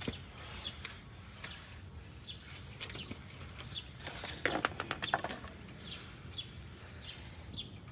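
A bird chirping again and again in short falling notes. About halfway through, a quick cluster of metallic clinks as brake parts are handled.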